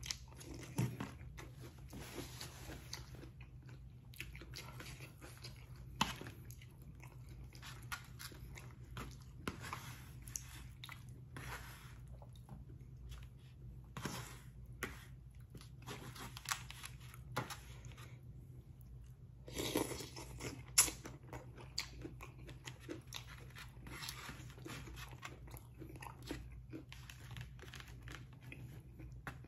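A person eating close to the microphone: chewing and mouth sounds, with scattered short clicks of a spoon and fork on paper plates, busiest about twenty seconds in. A steady low hum runs underneath.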